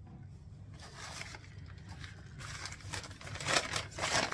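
White paper packing crinkling and rustling as it is unwrapped by hand from a jar, growing louder in the second half.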